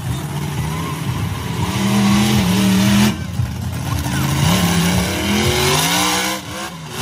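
Monster truck engine revving hard. Its pitch climbs and holds, dips about three seconds in, then climbs again as the truck drives over wreckage and crushed cars.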